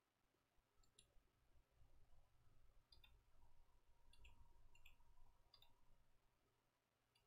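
Near silence broken by several faint, sharp computer mouse clicks, scattered a second or so apart.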